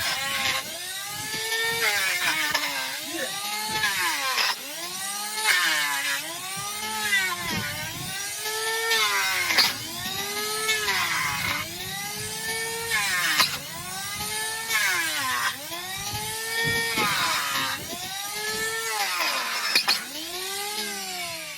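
Electric hoof-trimming tool grinding a donkey's hoof: its motor whine repeatedly dips in pitch and climbs back, about every second and a half, with a gritty scraping over it.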